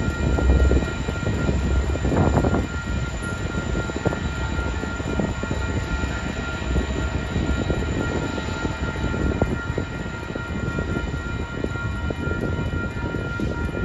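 Metra commuter train running past, a steady low rumble with many clicks and knocks from the wheels, and a faint steady whine above it.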